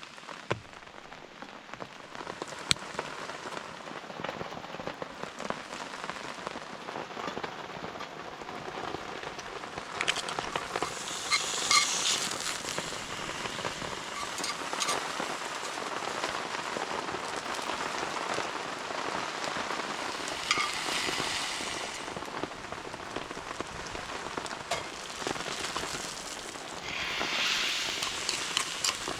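Steady rain falling, with scattered sharp crackles throughout. Three surges of louder hissing come about a third of the way in, about two-thirds in, and near the end.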